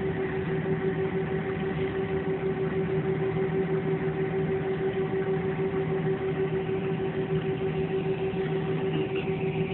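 Jet airliner engines running steadily, heard from inside the passenger cabin: a constant hum with a few fixed tones over a steady rush of noise.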